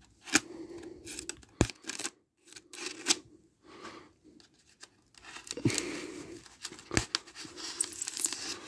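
Scissors cutting through packing tape that seals a styrofoam box: a series of scattered sharp snips, with scraping and tearing of the tape between them.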